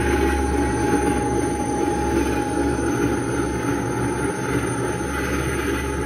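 Proton pack replica with a GPStar electronics kit, its idle hum sound effect playing: a steady low drone with a steady mid-pitched whine on top.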